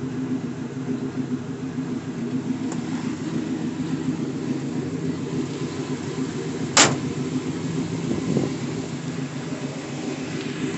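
1971 Chevrolet C10 pickup engine idling steadily just after start-up. A single sharp knock comes about seven seconds in.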